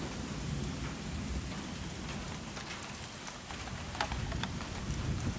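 Steady rain falling, with a low rumble underneath and a single sharp click about four seconds in.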